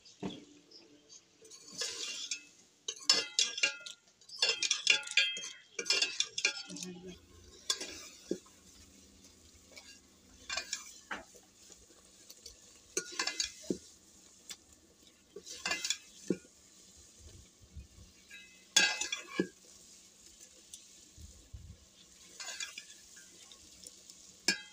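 Metal ladle stirring a simmering potato-and-meat curry in an aluminium cooking pot, scraping and clinking against the pot's sides. There is a busy run of scrapes in the first several seconds, then single strokes every two to three seconds.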